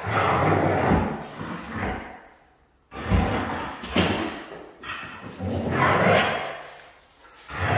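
A Siberian husky play-fighting with a puppy on a laminate floor: sudden thumps of paws and body hitting the floor, the sharpest about four seconds in as the husky pounces, between rough, noisy stretches of dog vocalizing.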